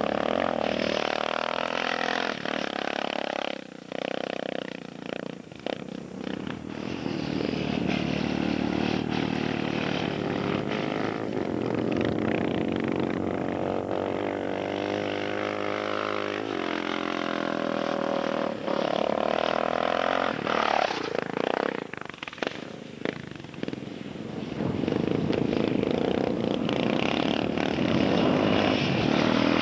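Off-road motorcycle engine revving as it rides across sand, its pitch rising and falling with the throttle. The engine drops away briefly about four seconds in and again a little past twenty seconds.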